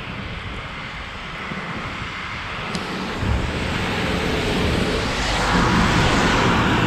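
A city bus overtaking close alongside on a wet road. Its engine drone and tyre hiss come in about three seconds in and grow louder, loudest as it passes near the end, over the steady rush of wind from riding the bicycle.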